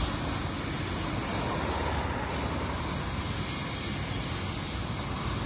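Rescue helicopter on the ground with its engine and rotor running, a steady noise.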